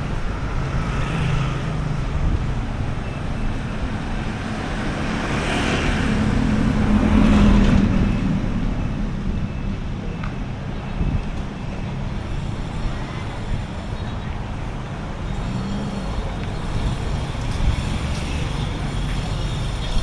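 Street traffic with a steady low rumble of wind on the microphone. A motor vehicle passes, loudest about seven seconds in.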